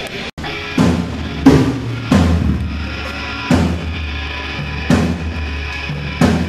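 Live band playing loud, slow heavy music: drum kit with kick and snare landing heavy hits about once a second, over a sustained low amplified guitar. The sound cuts out for an instant just after the start.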